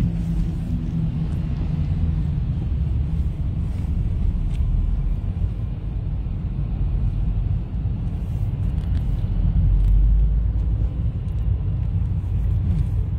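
Car interior noise while driving: a steady low rumble of engine and tyres heard from inside the cabin.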